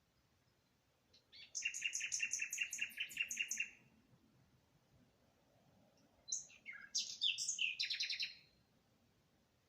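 A songbird singing in two phrases: first a fast, even trill of repeated high notes, then a few seconds later a quicker, varied phrase of whistled and buzzy notes.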